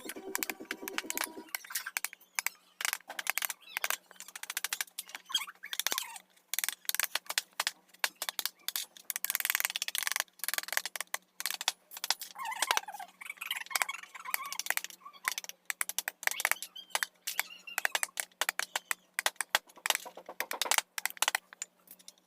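Hand carving of teak wood: a rapid, irregular run of sharp taps and clicks as a chisel is struck and cuts into the wood.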